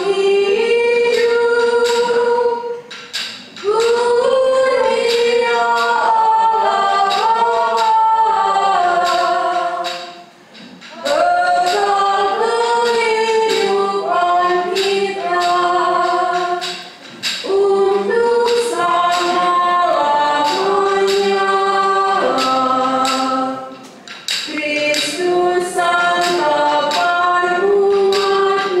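Church choir singing a hymn in long phrases, with short pauses between them.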